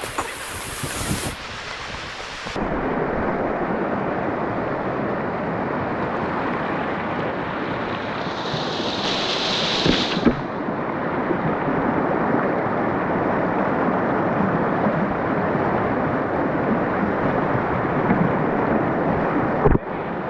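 Swift river current rushing in a steady, dense wash of water noise, with a brief higher hiss about nine seconds in.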